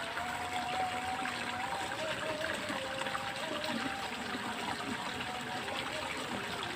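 Water flowing steadily through a small irrigation ditch, a continuous trickling rush.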